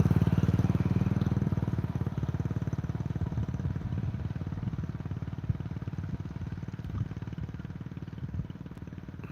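A vehicle engine running with a fast, even pulsing beat, gradually getting fainter, with a few light knocks.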